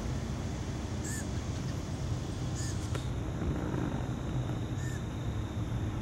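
An unseen animal in the tree canopy giving three short, high calls a second and a half to two seconds apart, over a steady low rumble.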